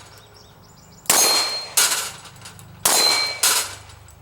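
Steel plate targets clanging and ringing as they are struck, in two pairs of sharp metallic hits, each hit ringing out briefly.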